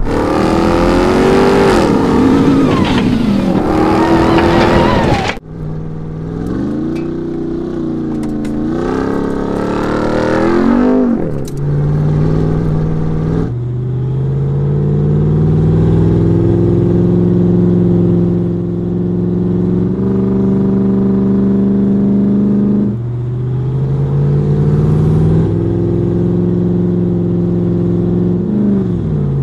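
Ram 1500 TRX's supercharged 6.2-litre V8 driving hard off-road, its pitch rising and falling with the revs. For the first five seconds a loud rushing noise runs with it, then the sound cuts abruptly to steadier engine running, which changes sharply twice more and drops in pitch near the end.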